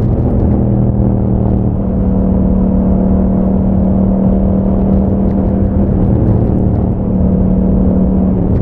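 Yamaha MT-07's 689 cc parallel-twin engine running through an aftermarket Akrapovic exhaust while riding, holding nearly steady revs with a slight drop in pitch about two seconds in.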